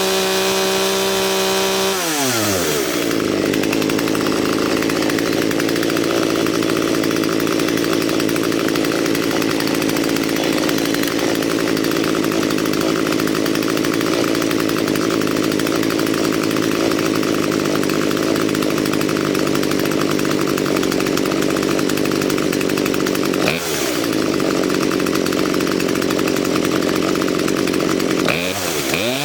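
Poulan P3816 two-stroke chainsaw running at high speed. About two seconds in, the engine pitch drops as the chain bites into a cut, and it holds a steady, loaded pitch through a long cut. It dips briefly twice near the end.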